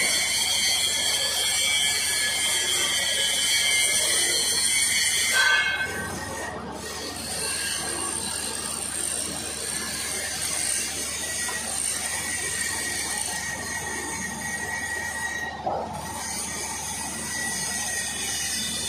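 Stick (SMAW) arc welding of stainless steel pipe with a 316 stainless electrode: a loud, steady crackle and hiss for about five seconds that stops suddenly when the arc is broken. After that, a quieter steady shop background with a faint high tone.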